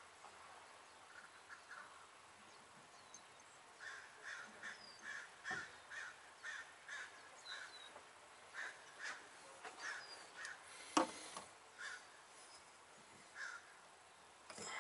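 Faint cawing of a crow, a run of short caws about two a second, with a small bird chirping now and then. A sharp knock comes about eleven seconds in.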